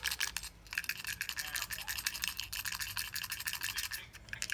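A loose part inside a GoPro action camera rattling in rapid sharp clicks, about ten a second, with two brief breaks: the internal rattle the owner is complaining about.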